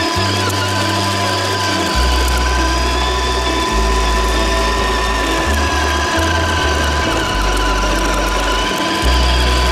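Radio-controlled car's electric motor and drivetrain gears whining steadily, the pitch drifting up and down as the throttle changes.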